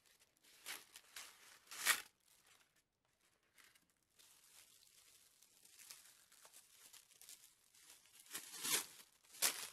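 Faint crinkling and rustling of foil and plastic packaging being unwrapped by hand, in short, scattered bursts. There is a louder crinkle about two seconds in and a few more near the end.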